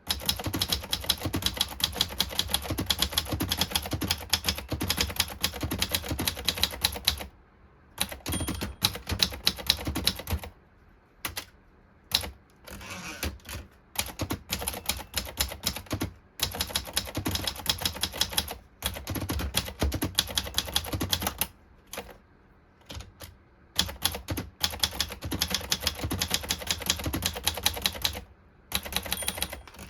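Swissa Patria manual portable typewriter being typed on: fast runs of key strikes in several bursts broken by short pauses, with a thunky, chunky click to the keys.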